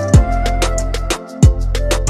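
Music with a beat: fast regular hi-hat ticks over deep falling kick drums and sustained bass. The bass drops out briefly just past a second in, and a kick lands right after.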